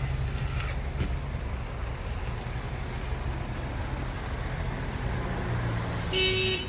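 Steady low rumble of a vehicle, then one short car-horn toot near the end, the loudest sound.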